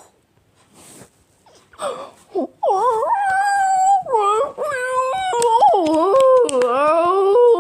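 A loud, high-pitched drawn-out vocal wail, starting about two and a half seconds in, its pitch sliding up and down with several sudden jumps.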